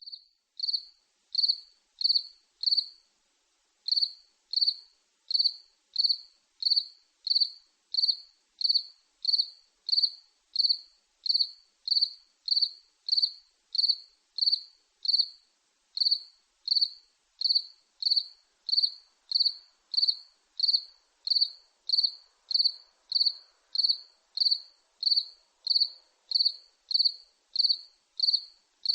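A cricket chirping: short high-pitched chirps repeated at an even pace, about three every two seconds, with brief pauses about three seconds in and again near the middle.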